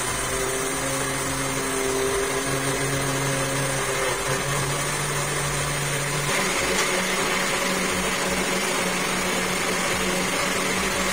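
Countertop blender running steadily, blending oats, banana and peanut butter into a smoothie. About six seconds in, the motor's pitch steps up and the whir turns brighter.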